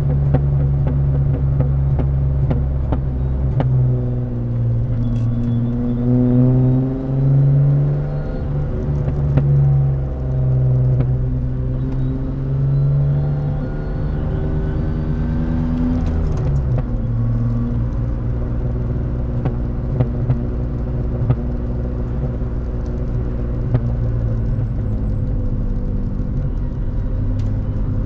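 BMW E36 328i straight-six with a loud exhaust, heard from the cabin on the move. The engine note rises and falls with the throttle, then about halfway through drops to a lower steady drone under a road rumble. A few short sharp pops come in the later part.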